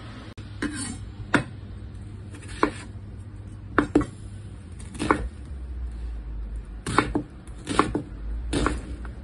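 Kitchen knife slicing a white onion on a wooden cutting board, the blade knocking sharply on the board about nine times at an uneven pace.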